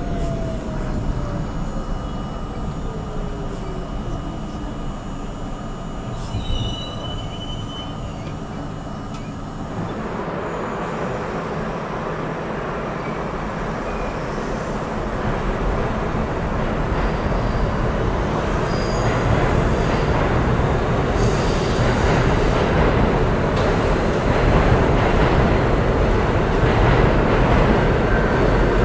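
A New York City subway train's traction motors whining down in pitch as it runs into a station, with a brief wheel squeal. Then an R68 subway train moving along the platform: the rumble of its wheels and motors grows louder as it picks up speed, with high-pitched wheel squeals about two-thirds of the way through.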